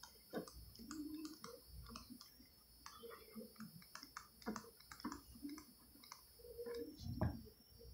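Faint, irregular clicks and taps of a stylus on a tablet screen while handwriting.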